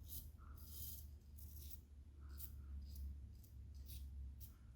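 Double-edge safety razor (King C. Gillette with a Shark Super Chrome blade) scraping through lathered stubble in short, faint strokes, about one a second, over a steady low hum.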